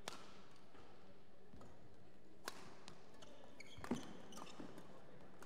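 Badminton rackets hitting the shuttlecock in a doubles rally: three sharp hits, at the start, about two and a half seconds in and about four seconds in, the last the loudest. Short shoe squeaks on the court mat around the last hit.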